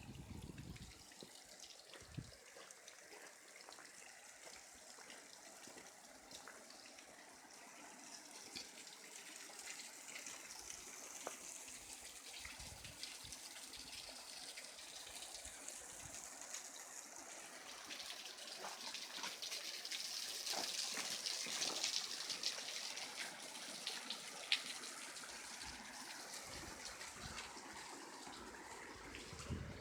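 Hot-spring water flowing and trickling in a steady hiss, growing louder about two-thirds of the way through, with scattered small clicks.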